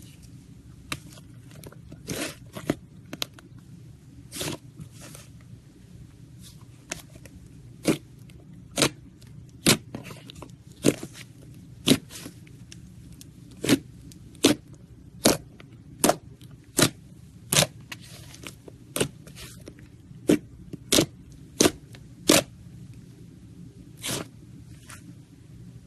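Slime being handled, giving a series of sharp pops and crackles, roughly one a second through the middle of the stretch, over a low steady hum.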